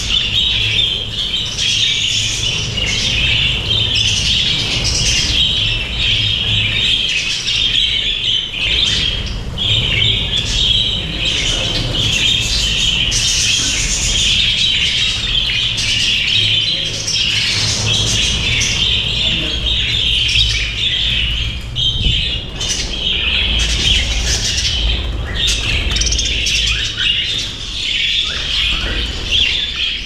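A flock of budgerigars chattering and warbling without a break, a dense mass of overlapping chirps with brighter, sharper calls standing out now and then.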